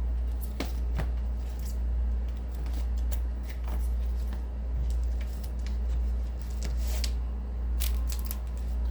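Vinyl record jackets being handled and shuffled: scattered short rustles and clicks, over a steady low hum.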